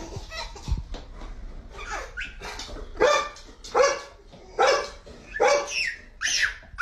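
A dog barking in a steady run of loud barks, starting about three seconds in.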